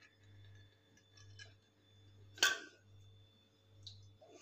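Faint handling of a small opened metal can of evaporated milk, with one sharp click about two and a half seconds in; near the end the milk starts to pour into a bowl of cream.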